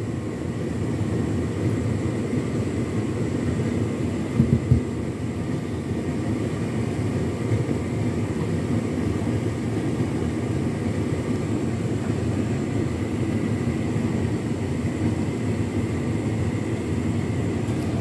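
Hotpoint Ultima S-line tumble dryer running on its turbo dry cycle: a steady low rumble from the motor and the turning drum, with a faint steady whine above it. A couple of brief thumps come about four and a half seconds in.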